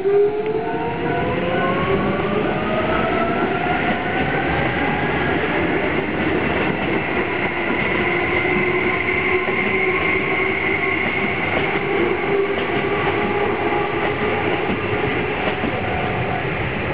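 Keisei Main Line electric train passing through a level crossing, its motor whine rising in pitch over the first few seconds as it gathers speed and then holding steady, with wheels clattering over the rails. The crossing's warning bell keeps ringing throughout.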